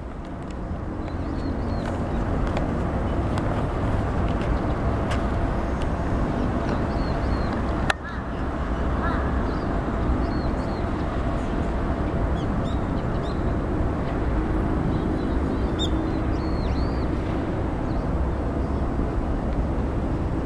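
Outdoor city waterfront ambience: a steady low rumble of wind and distant traffic, with short high bird chirps now and then.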